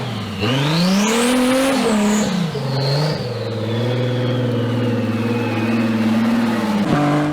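A car engine revving: its pitch climbs sharply, drops back in steps, then runs on at a steady note that slowly sinks before it stops near the end.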